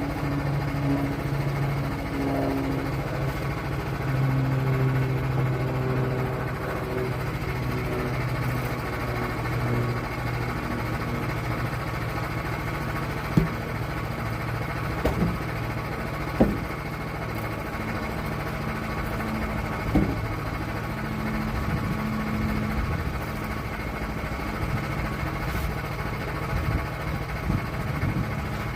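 Engine running at a fairly steady speed, its pitch shifting a little, with four sharp knocks in the middle.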